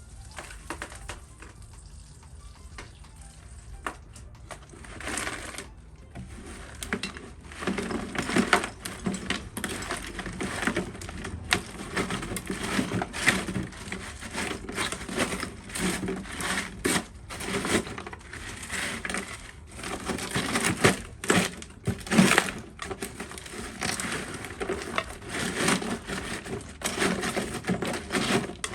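Rough gravel and broken rubble being tipped and shovelled into a soakaway pit: irregular crunching and clattering of stones and broken pot. It starts quietly and grows busier after the first few seconds.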